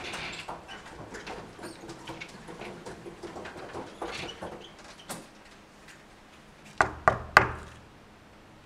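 Housekeeping trolley rattling and clinking as it is pushed along, then three quick, sharp knocks on a wooden hotel-room door near the end.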